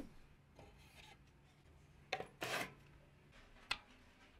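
Hands handling a laser engraver and plugging a cable into its control box: a few sharp clicks and a short scraping rub over a faint steady low hum. It opens as a louder swish fades out.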